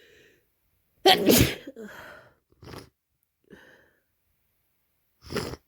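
A person with a head cold sneezing: one loud, wet sneeze about a second in, then sniffles and breaths, and another short, sharp sneeze-like burst near the end.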